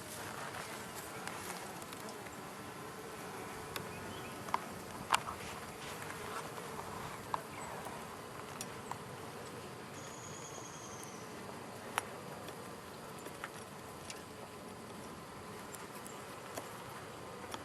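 Honey bees humming in a steady mass around an open hive, with a few short clicks here and there.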